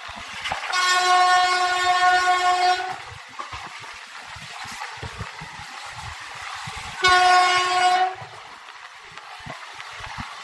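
WAP-4 electric locomotive's horn sounding twice: a blast of about two seconds, then a shorter one of about a second, each held on one steady pitch. The train's running noise on the rails continues underneath.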